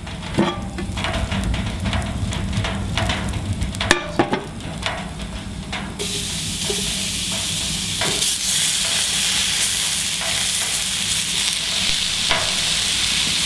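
Light clicks and knocks in a cast iron pan at first. About six seconds in, a steady loud sizzle starts as wild mushrooms and tomatoes fry in hot ghee.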